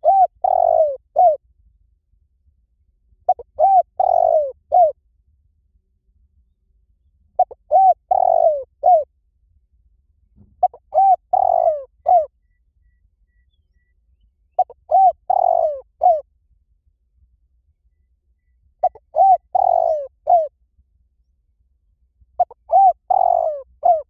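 Spotted dove cooing: a phrase of about four low coos, repeated at even intervals about every four seconds, seven times over.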